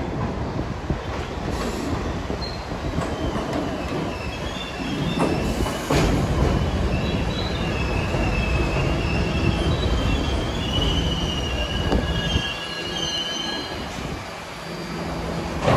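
New York City subway train running on the rails, a low rumble with its steel wheels squealing in wavering high-pitched tones from about three seconds in, and a sharp knock about six seconds in.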